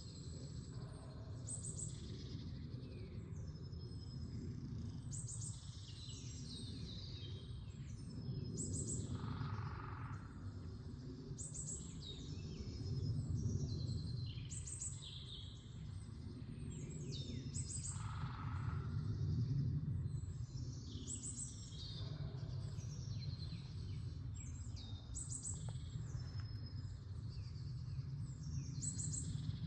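Several small songbirds chirping and singing in a forest at early-spring dawn, short high calls overlapping one another, with a lower call heard twice, over a steady low rumble.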